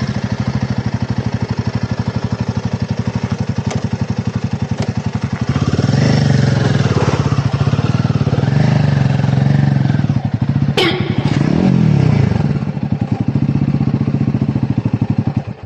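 Single-cylinder adventure motorcycle engine running at low trail speed, a steady throbbing exhaust beat that grows louder under more throttle from about five seconds in and eases again near twelve seconds. A single sharp knock about eleven seconds in.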